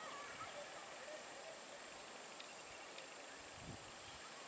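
Steady high-pitched drone of insects, with faint scattered chirps over it and a brief low rumble near the end.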